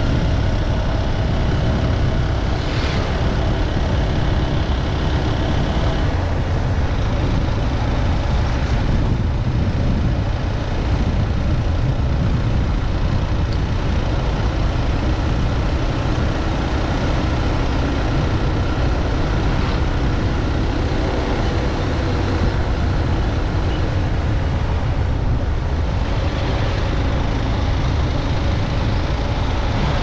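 Steady ride noise from a moving road vehicle: engine hum and tyre noise on asphalt under a heavy wind rumble on the microphone.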